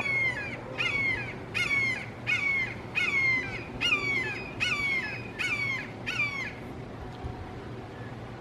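Red-shouldered hawk giving a rapid series of about nine loud, down-slurred kee-aah calls, a little more than one a second, which stop about three-quarters of the way through.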